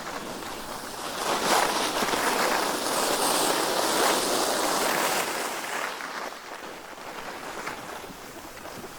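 Skis sliding and scraping over snow on a downhill run, swelling louder for about four seconds, then easing.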